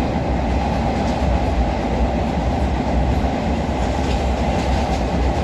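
Passenger train running, heard from on board: a steady, even rumble of the carriage and wheels on the rails, with a few faint knocks.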